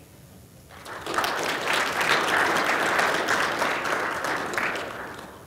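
Audience applauding, building up about a second in and dying away near the end.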